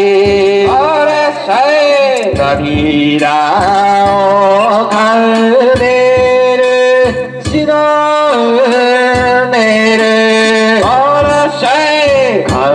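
A man singing a danjiri pulling song (hiki-uta) solo, with long held notes that waver and slide between pitches, over a steady low tone.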